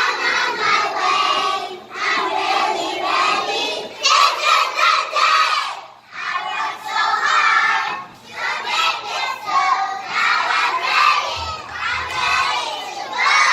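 A group of children shouting and singing together in loud phrases of one to two seconds, with short breaks between them.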